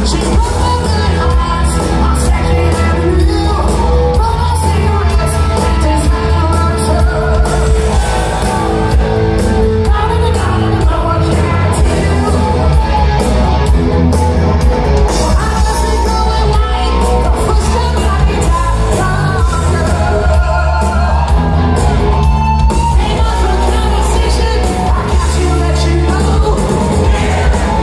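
Live hard rock band playing loud: a male singer over distorted electric guitars, bass and drums, in a large hall.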